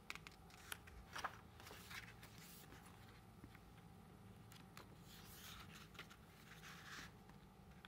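Faint rustles and a few light taps of glossy photobook pages being turned and handled, in near quiet.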